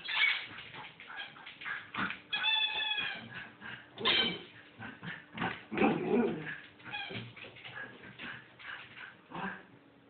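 A Bedlington Terrier puppy gives several high whines and yips, the longest about two seconds in, in the middle of a mad play spell. Many quick clicks, taps and scuffles run between the calls as it scrambles about on the hard floor.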